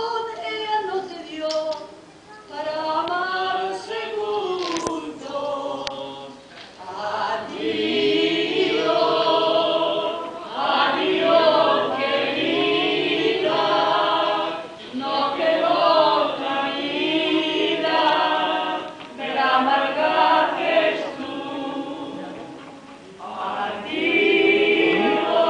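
Several men and women singing together unaccompanied, in phrases a few seconds long with short breaks between them.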